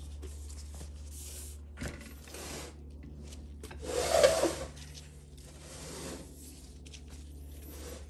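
Metal transmission parts of a Ford 4R100, its planetary gearset and clutch drums, rubbing and scraping as gloved hands handle and turn them on a steel workbench, with a louder scrape about four seconds in.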